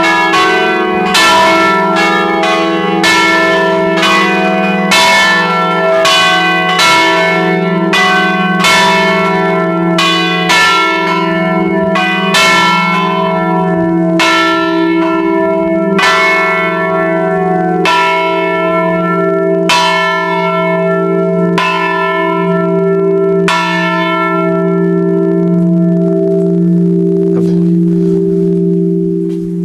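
A five-bell church tower peal, the bells struck over and over in an irregular, overlapping rhythm. The strokes thin out and stop about 24 seconds in, leaving the bells' hum slowly dying away.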